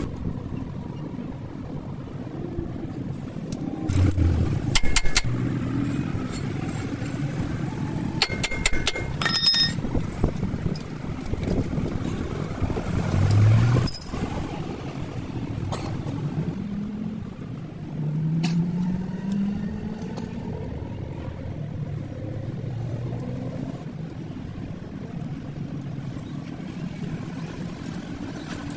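Car running with a steady low drone, its pitch rising a few times as it picks up speed, and a few sharp metallic clicks.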